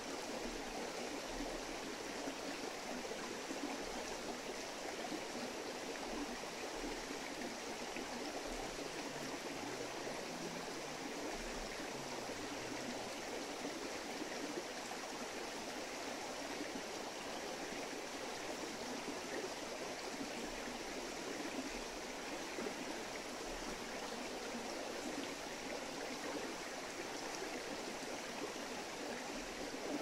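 Shallow mountain stream flowing steadily over rocks and stones, an even rushing and babbling.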